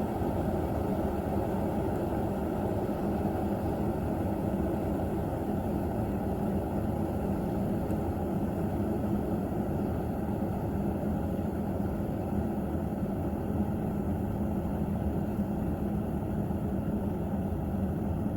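COSORI 1500 W electric kettle heating water: a steady, even noise, mostly low in pitch, with no break.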